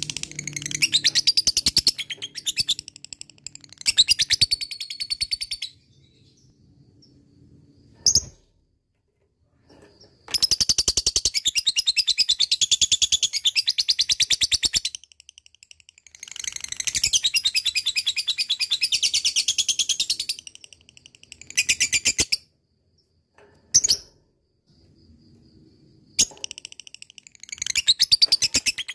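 Lovebird singing its long 'ngekek' chatter: rapid, high-pitched trilling calls in runs of about two to five seconds, the longest two near the middle, broken by short pauses and a couple of single chirps.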